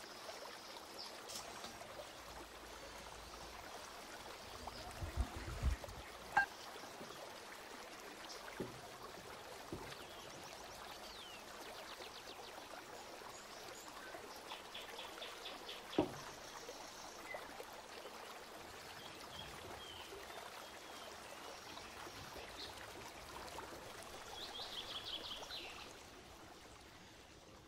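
Steady trickling of running water, with a few light knocks and short, high chirps now and then.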